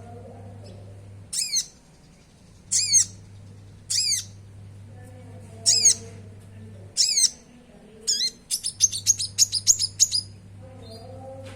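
Konin (brown-throated sunbird) calling: short, sharp, falling high notes about once a second, then a fast chattering run of chirps about eight seconds in. A steady low hum lies underneath.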